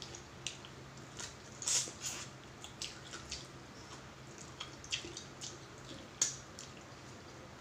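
Close-up eating sounds: scattered small wet clicks and smacks of chewing, a dozen or so, the loudest about two seconds in and again about six seconds in.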